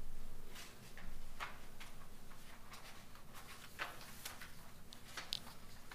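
Scattered faint clicks and rustles of papers being handled over low room hum.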